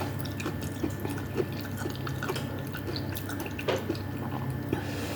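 Soup being eaten at close range: scattered small clicks and wet drips and slurps of spoon and broth, over a steady low hum.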